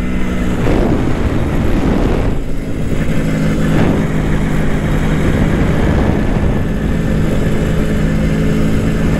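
CZ two-stroke motorcycle engine running at steady road speed under way, heard from the saddle with wind rush over the microphone. The engine note dips briefly about two and a half seconds in, then holds steady.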